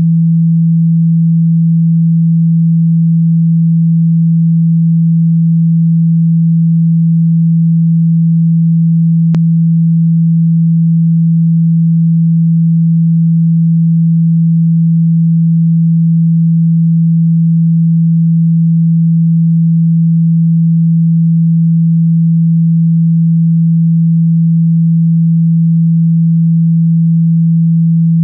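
A loud, steady, low pure tone, about 165 Hz, held unchanged: a speaker-cleaning tone played at full volume to vibrate water and dust out of a phone speaker.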